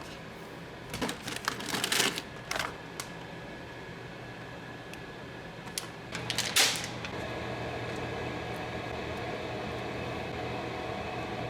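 Kitchen clatter: a quick run of clicks and knocks of utensils and dishes about a second in, and one louder knock near the middle, over a steady kitchen appliance hum.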